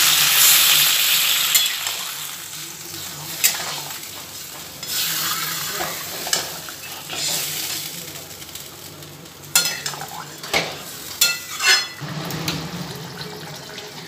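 Water poured into a hot kadai of fried potatoes and pointed gourd (potol) in spice paste, sizzling loudly at first and dying down over about two seconds. A spatula then stirs and scrapes the curry, with a few sharp knocks against the pan near the end.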